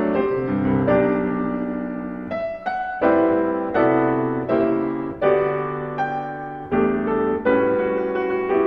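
Background piano music: slow chords and melody notes, a new chord struck every second or two and fading before the next.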